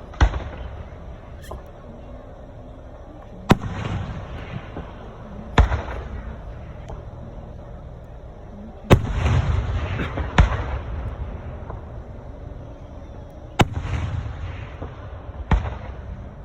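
Aerial fireworks shells bursting: seven sharp booms a couple of seconds apart, each trailing off into a rumbling, crackling tail.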